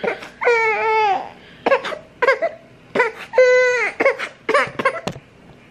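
Baby crying: two long, high wails about three seconds apart, with shorter fussy sounds between.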